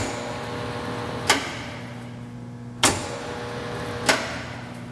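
Lever collet closer on a Hardinge DSM-59 lathe being thrown open and shut, giving a sharp metallic clack about every second and a half. A steady low hum runs beneath.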